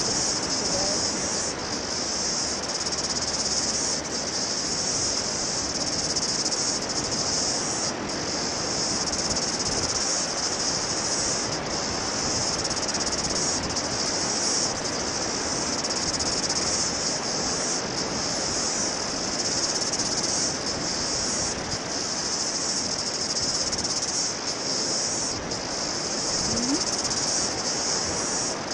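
Steady outdoor wind noise on the microphone, with a dense, unbroken high-pitched insect chorus over it.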